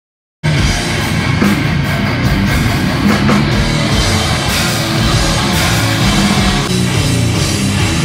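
Grindcore band playing live at full volume, electric guitars and drum kit, starting abruptly about half a second in.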